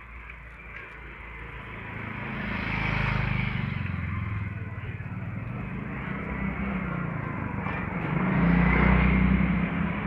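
Small motor scooters passing close by, their engine hum swelling and fading: one pass about three seconds in, and a louder one near the end.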